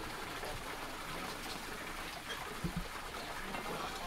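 Faint, steady outdoor background hiss, with two soft low thumps about two and a half seconds in.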